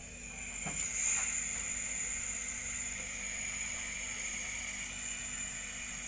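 Refrigerant gas hissing steadily through a manifold gauge valve and charging hose, swelling about a second in as the valve is opened: the low-side charge being set to 15 PSI.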